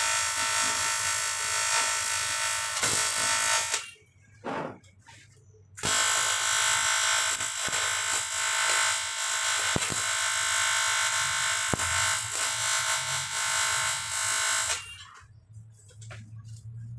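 Electric welding arc buzzing steadily while a water jacket is welded. The arc breaks off about four seconds in, is struck again about two seconds later, and runs for about nine seconds before stopping, leaving only a low hum.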